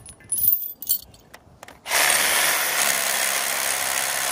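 A few clinks of metal gear being handled, then about two seconds in a battery-powered Milwaukee M18 drill starts and runs steadily, drilling a 1/2-inch bolt hole deeper into granite because it was too shallow.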